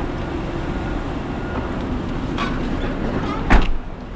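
A steady low rumble of idling engines and traffic, then about three and a half seconds in a car door slams shut once and the rumble becomes quieter, closed off by the car's cabin.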